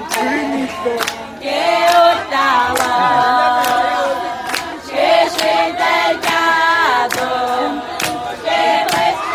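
A group of voices singing together in harmony, holding long notes, with sharp taps keeping time roughly every two-thirds of a second.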